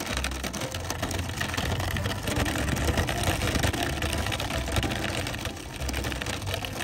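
Small wooden cart on plastic wheels rolling over a gravel road, a steady crunching rattle with a low rumble underneath.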